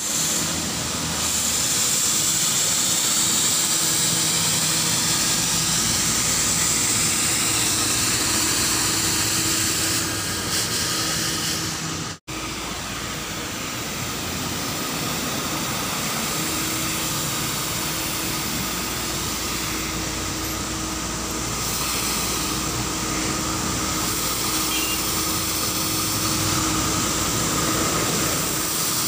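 Street sweeper running steadily: an engine and suction-fan drone with a strong high hiss. The sound cuts out for an instant about twelve seconds in.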